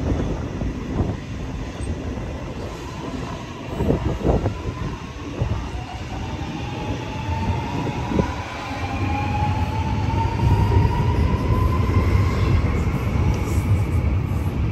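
Sydney Metro Alstom Metropolis driverless train accelerating past on the far track, its traction motors giving a whine that rises steadily in pitch. The rumble of wheels on rail grows louder as the train draws alongside.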